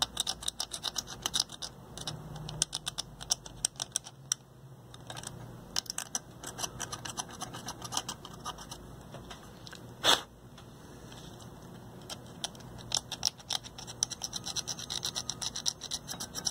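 X-Acto hobby knife scraping corrosion off eaten copper foil traces on a circuit board, to bare the shiny copper underneath. Quick short scratching strokes go on steadily, with one sharper click about ten seconds in.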